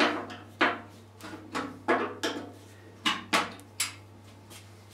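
A flat-blade screwdriver working the door latches on a bandsaw's sheet-metal upper wheel cover: about ten sharp, irregular metallic clicks and knocks.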